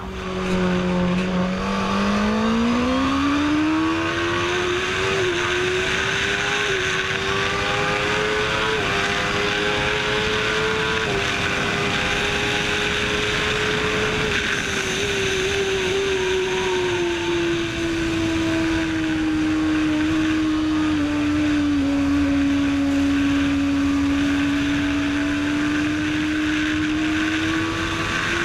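Kawasaki ZX-10RR's inline-four engine running hard on a racetrack, heard from on the bike with wind rush. The pitch climbs steeply in the first few seconds, holds high with a few small jumps, sinks slowly through the middle and rises again near the end.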